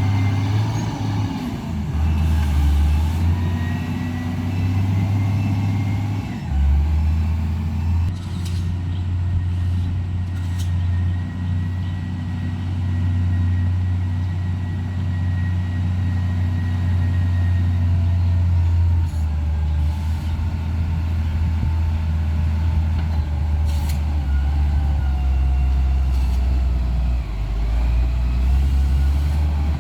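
Heavy diesel engine running under load, its low drone shifting in pitch several times, with a few sharp knocks.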